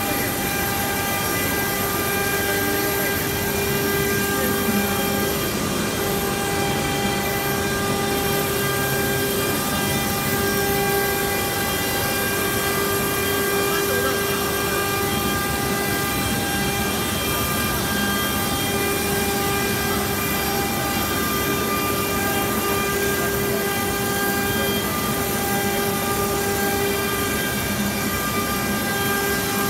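Stone-carving CNC router spindle running steadily, its bit carving a sandstone relief, a steady tone with overtones over an even grinding noise.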